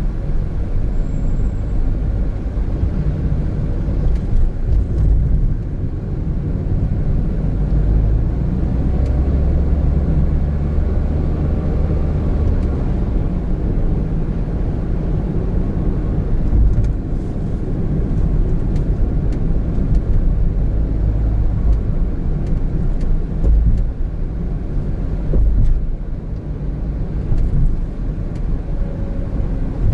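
Road noise inside a moving 2017 Honda N-BOX Custom: a steady low rumble of tyres and its 660cc turbo engine while driving.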